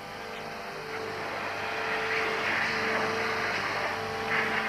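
Numerically controlled machine tool grinding out aircraft parts: a steady machine hum under a hissing cutting noise that builds from about a second in and swells again near the end.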